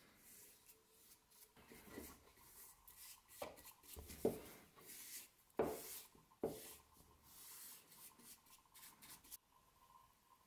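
Paintbrush bristles stroking a wet finish onto a wooden hammer handle, a faint repeated swishing, with a few sharp knocks in the middle. The brushing stops about a second before the end.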